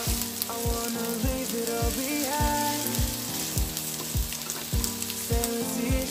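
Sliced onion, ginger and garlic sizzling in hot oil in a nonstick wok while a wooden spatula stirs them. Background music with a steady beat plays over it.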